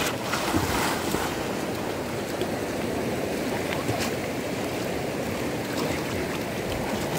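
Steady splashing and lapping of river water around people wading and swimming, with a few small splashes.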